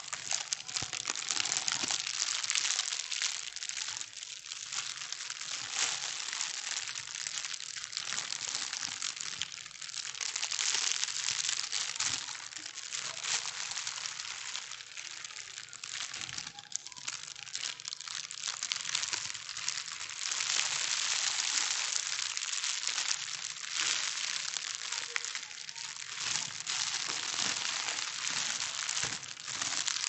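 Plastic bags being crumpled and crinkled without pause: a dense, crisp rustle that swells and eases but never stops.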